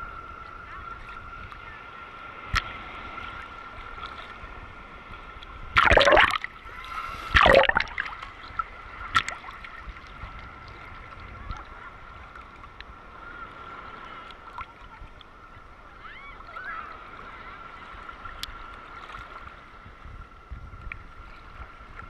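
Sea water sloshing and lapping against a camera held at the surface, muffled, with two loud splashes about six and seven and a half seconds in and a few small clicks of water. A faint steady high hum runs underneath.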